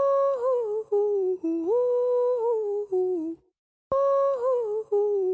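A hummed melody on a music track: one phrase of a few stepwise notes, broken off by a brief silence, then repeated the same way.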